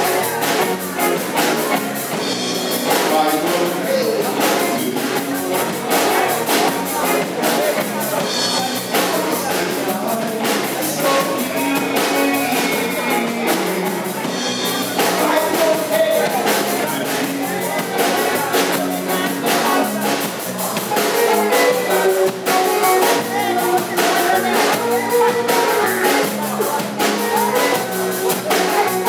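Live band playing an amplified song on electric guitars and drum kit, with the drums keeping a steady beat.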